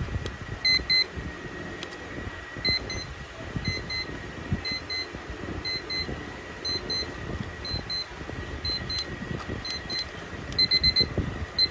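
Battery quartz travel alarm clock's electronic alarm beeping: short high double beeps repeating a little under once a second, quickening into rapid groups of four near the end, as the alarm steps up. Light handling noise from the hand holding the plastic case runs underneath.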